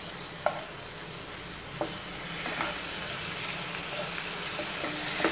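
Wet spice masala sizzling in a stainless steel pan as it is stirred with a wooden spatula, with a few sharp knocks of the spatula against the pan, the loudest about half a second in.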